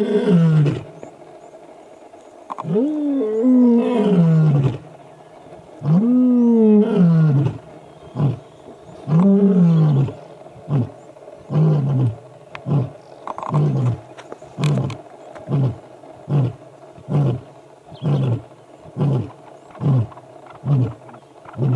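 Male lion roaring a full bout: four long roars, each falling in pitch, then a run of about fourteen short grunting roars, a little faster than one a second. It is a territorial roar, a challenge to rival males.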